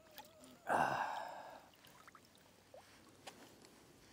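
A man's sharp, breathy exhale about a second in, fading away over about a second, with a few small clicks around it.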